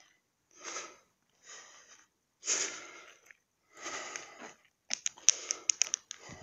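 A person breathing hard, panting in and out about once a second, out of breath from walking up a steep hill. A few sharp clicks come near the end.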